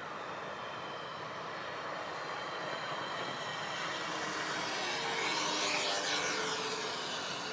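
FMS 1400mm P-40B electric RC warbird flying past overhead: the whir of its motor and propeller mixed with the simulated piston-engine drone from its onboard sound system. It grows louder to a peak about six seconds in as it passes close, then fades.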